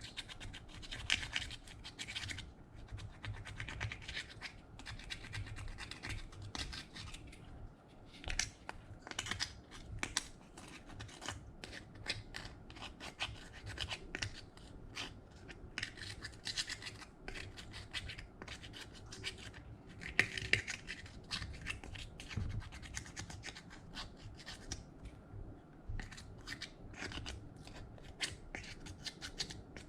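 Slime being mixed and worked with glitter, making irregular sticky clicks, crackles and scratchy squishing sounds.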